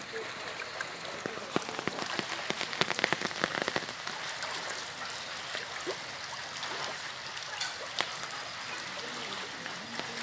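Heavy rain falling, a steady hiss full of sharp raindrop clicks that come thickest and loudest about two to four seconds in.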